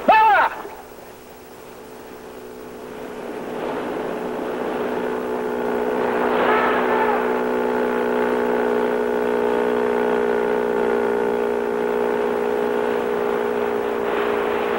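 A man's short shout, then a motorboat's engine running at a steady pitch, growing louder over the first several seconds as the boat comes closer, then holding steady.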